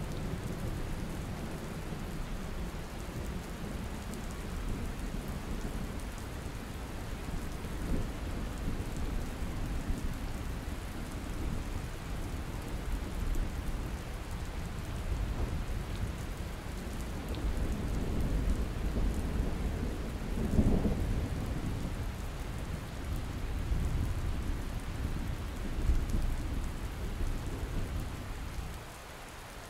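Thunderstorm: steady rain with rolling thunder rumbling through it, swelling to a sharper clap about two-thirds of the way in and another shortly after. The thunder fades out just before the end, leaving the rain.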